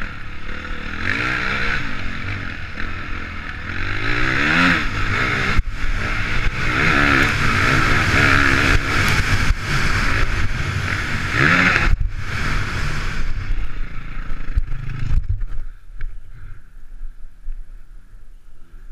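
Motocross bike engine ridden flat out, its pitch climbing through the gears again and again, with heavy wind noise. Near the end the engine eases off and everything goes quieter.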